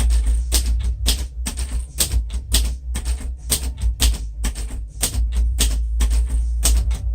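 A 1947 Royal Quiet Deluxe manual portable typewriter being typed on at a steady pace: crisp type-bar strikes, about three a second, each hitting the platen.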